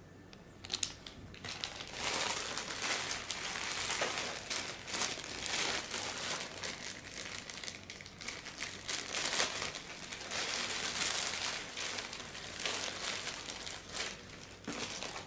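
Plastic packaging crinkling and rustling as it is handled, with many small crackles and clicks, which begin about a second and a half in and fade near the end.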